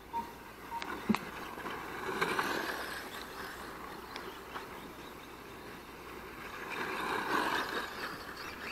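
Radio-controlled model cars running on a dirt track, a hissing sound that swells twice as cars pass, with a single sharp click about a second in.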